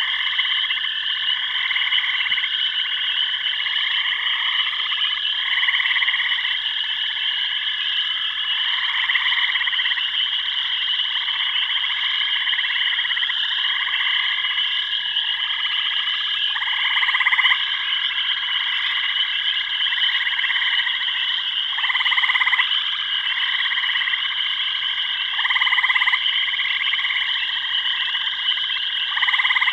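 Chorus of frogs: a steady high trill, with louder calls that repeat every second or two.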